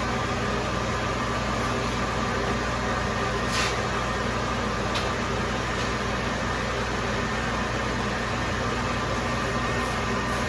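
Steady mechanical hum and fan-like whir from running shop equipment, with two faint clicks.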